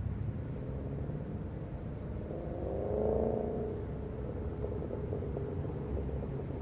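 Steady low outdoor rumble, with a pitched hum that swells and fades about two to four seconds in.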